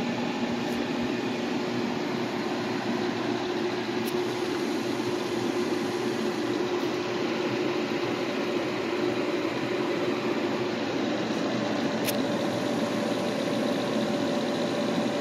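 Steady whirring hum of grow-tent ventilation fans, even and unbroken.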